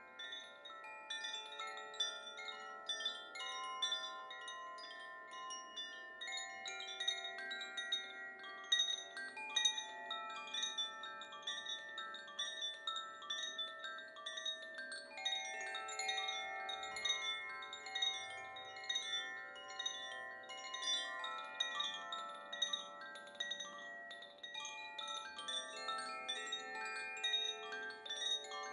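Koshi chimes, bamboo tubes with tuned metal rods inside, swaying and tinkling without pause: quick light strikes of the clapper ring on as overlapping tones that blend into a shimmering chord.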